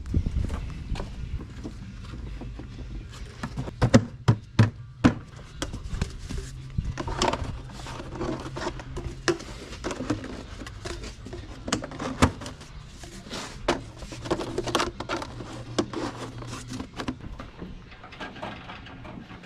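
Irregular clicks and knocks of parts and tools being handled during the repair, over a steady low hum.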